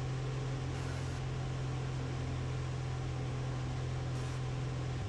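Sonex homebuilt light aircraft's engine and propeller running steadily in flight: a constant low hum over an even hiss, dropping slightly in pitch at the very end.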